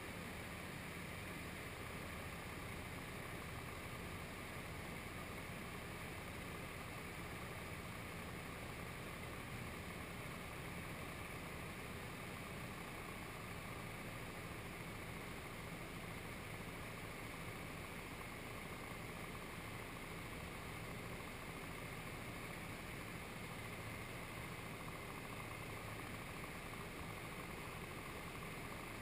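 SD1 Minisport ultralight aircraft's engine and propeller running steadily at an even pitch, mixed with a constant rush of air noise.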